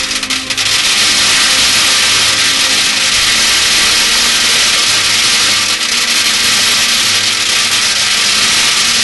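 A steady, dense rattle of many metal BBs pouring into a tin can, one unbroken clatter.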